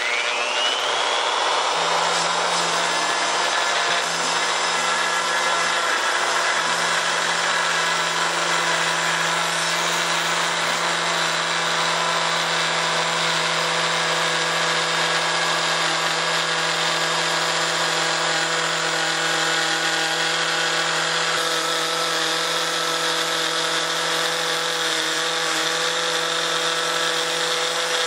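Porter-Cable plunge router switched on, its motor whine rising to full speed over about two seconds, then running steadily as the bit cuts the recess for the router plate into the table top. The tone shifts slightly about three-quarters of the way through.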